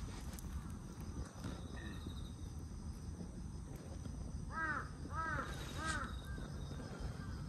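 A crow cawing three times in quick succession, a little past the middle, followed by a few fainter calls, over a steady low outdoor rumble.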